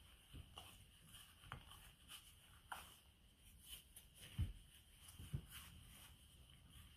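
Faint, irregular soft thumps and squishes of cookie dough being mixed and pressed by hand in a glass bowl, with two louder thumps a little past the middle.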